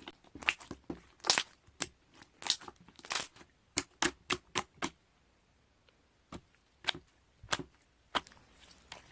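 Irregular sharp clicks and taps of things being handled. They come quickly through the first half, then a few scattered ones after a short pause.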